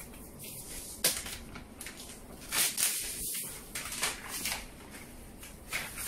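Thin protective wrapping sheet rustling and crinkling as it is peeled off a laptop, with a sharp click about a second in and louder crinkling around the middle.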